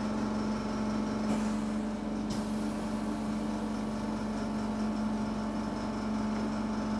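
Steady mechanical hum with a constant low tone.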